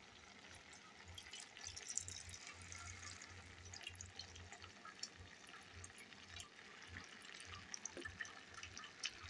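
Faint trickling and dripping of liquid draining from a tipped tin can into a metal bowl.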